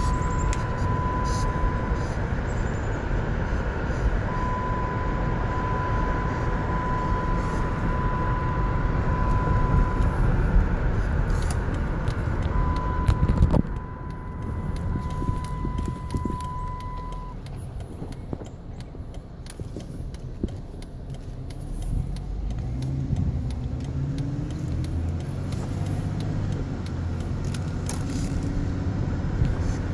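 Wind rush and road noise through an open window of a moving car, with a steady high whistle that comes and goes. About halfway through the rush drops away sharply, leaving a quieter, lower car hum.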